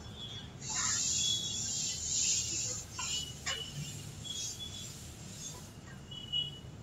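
Whiteboard duster wiping marker off a whiteboard: hissing, scraping strokes for about the first three and a half seconds, with short high squeaks of the eraser on the board.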